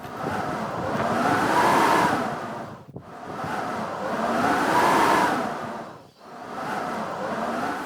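Blizzard wind blowing in three gusts, each swelling and dying away over about three seconds, with a howling tone that rises and falls in pitch.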